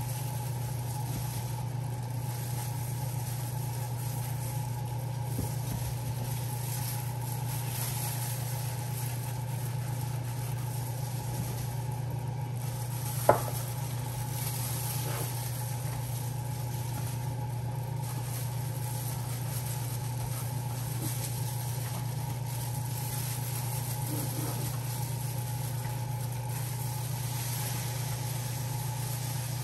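Steady low hum, with a thin higher tone running over it, and a single sharp click a little before the middle.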